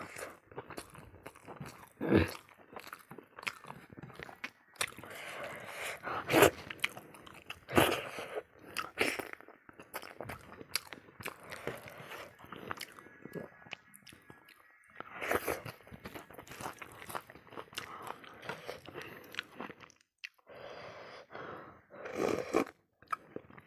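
A person chewing and crunching a mouthful of rice with spicy pickled pork trotter, with irregular mouth clicks and smacks. About two seconds before the end comes a slurp of soup from a small bowl.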